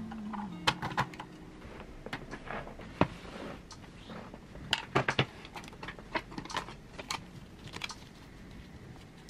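Irregular sharp clicks and clacks of small plastic stationery being handled and set down on a desk: clear acrylic organizer boxes and their contents being moved. Near the end comes a quick flurry of light clicks as a stack of photo cards is flicked through.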